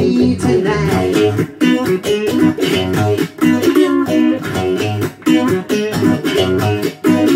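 Taylor T5z hollow-body electric guitar playing a blues instrumental passage: rhythmic strummed chords over a repeating low riff, the rhythm part layered with a looper pedal.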